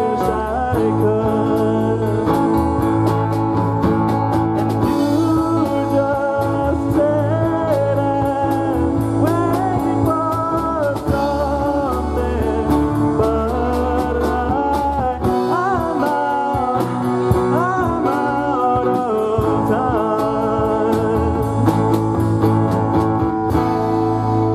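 Live rock band of acoustic guitar, electric guitar, bass guitar and drum kit playing a song, with a melody line bending in pitch over a steady drumbeat. Near the end the drums stop and the band ends on a ringing chord.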